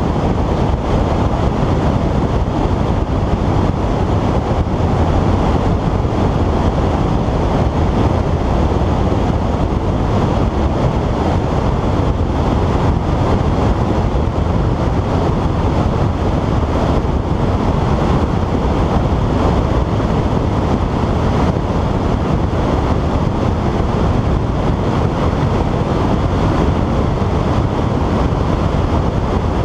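Steady, deep rush of wind buffeting the onboard camera's microphone on a Skywalker FPV plane in flight at altitude.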